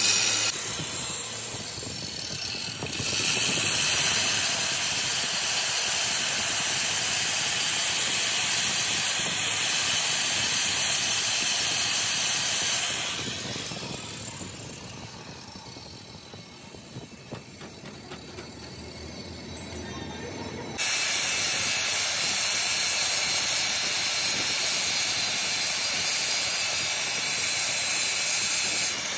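Angle grinder grinding the steel arm of a truck differential spider shaft held in a lathe chuck: a steady loud grind that fades away for several seconds in the middle and starts again abruptly about two-thirds of the way in.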